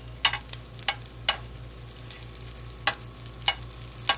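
Cornbread patty frying in shallow oil in a nonstick skillet, sizzling steadily, while a spatula scrapes and taps against the pan about half a dozen times.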